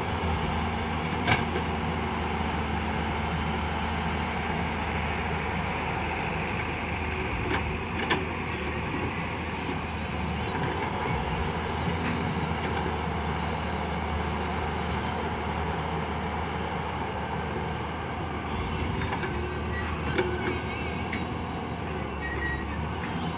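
Diesel engines of a working Hyundai excavator and an idling tractor running steadily with a low drone. A few sharp knocks stand out, about a second in, around eight seconds and again near twenty seconds.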